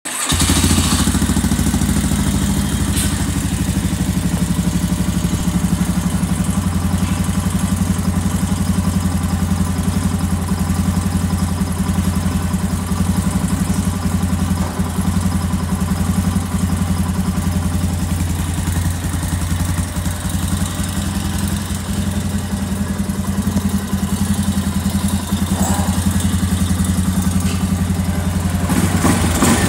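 2019 Can-Am Outlander ATV engine idling steadily.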